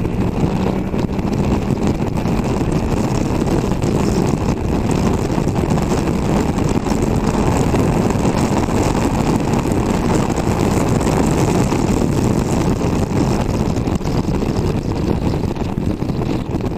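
Triumph Tiger Sport 660's 660 cc inline three-cylinder engine pulling hard in a lower gear at motorway speed, mixed with steady wind rush over the microphone.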